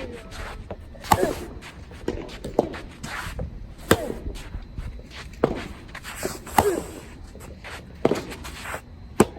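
Soft tennis rally: sharp pops of rackets striking the soft rubber ball about every second and a half, alternating louder and fainter as the ball goes back and forth, with footsteps between the hits. A low wind rumble on the microphone underlies it.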